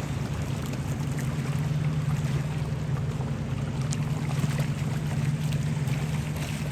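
A boat engine running steadily with a low, even hum.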